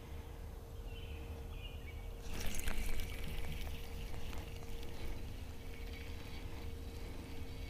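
Water splashing and trickling for about a second, starting a little over two seconds in, then the light clicking of a spinning reel as line is cast and cranked in, over a low steady rumble.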